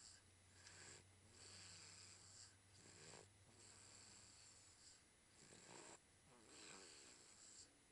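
Faint snoring: a string of noisy breaths, each about a second long, with short pauses between them.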